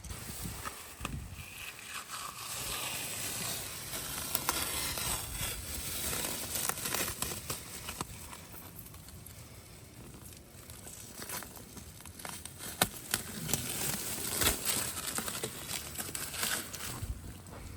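Masking tape and paper crinkling and rustling as they are peeled off and handled, with scattered sharp clicks.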